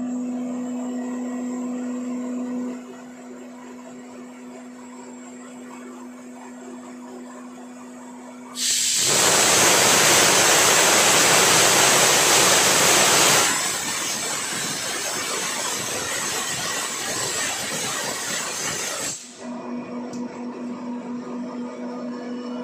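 10 HP single-stage oil-lubricated rotary screw air compressor running with a steady hum, going quieter about 3 s in as it unloads. About 9 s in a loud hiss of compressed air escaping sets in for around ten seconds, loudest at first, while pressure falls from 0.91 to 0.79 MPa. The hum then returns as the compressor loads again.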